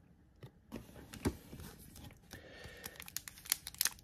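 Trading cards and a foil card-pack wrapper being handled: scattered light clicks and rustles, turning to a denser crinkling near the end.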